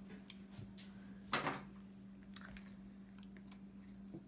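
Cooked king crab leg shell being handled and pulled apart by hand, with one short sharp crackle about a second in and a few faint clicks, over a faint steady hum.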